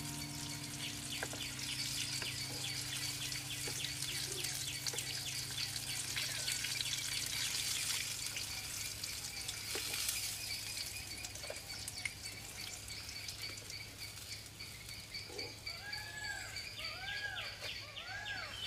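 Oil sizzling in a wok as stuffed capsicums deep-fry, with birds calling; near the end a bird gives four quick rising-then-falling chirps.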